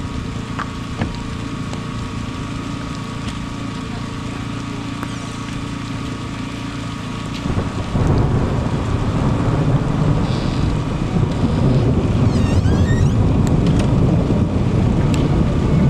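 Steady rain during a thunderstorm, with a long low rumble of thunder rising about halfway through and continuing to the end.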